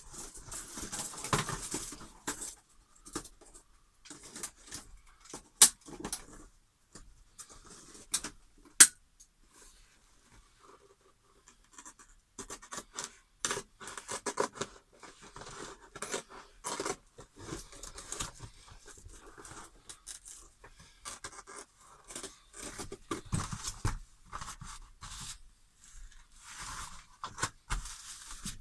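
Irregular rustling, scraping and sharp clicks of materials being handled, with two louder clicks around the sixth and ninth seconds and a short lull in the middle.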